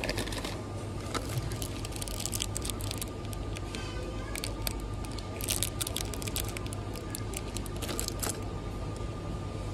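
Plastic and foil chocolate packaging crinkling and rustling as it is handled and pulled from a shelf, in a run of irregular crackles that stops about eight seconds in, over a steady background hum.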